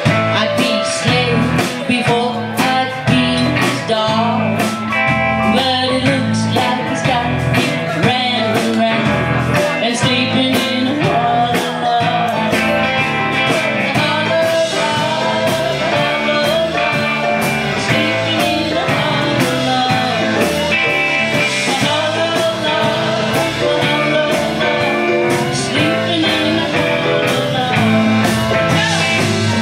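Live band music: a song with a singer, guitar and a steady drum beat.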